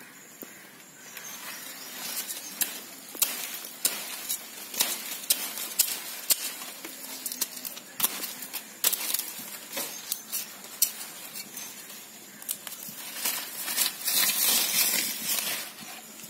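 Hands pulling apart a root ball of red neck palm stems: dry leaf sheaths crackling and soil crumbling in many short clicks and rustles, thickening into a denser rustle near the end.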